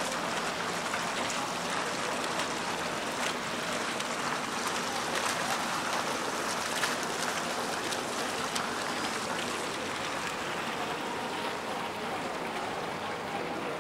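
A small fountain jet splashing steadily into its basin, an even watery hiss that is a little quieter near the end.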